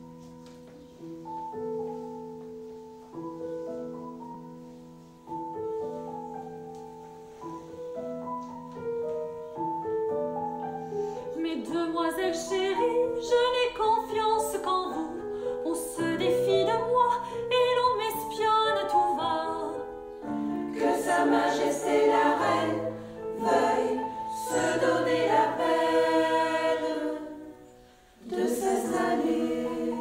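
Slow instrumental music, then a choir of women's voices comes in singing about eleven seconds in. The music breaks off for a moment near the end and starts again.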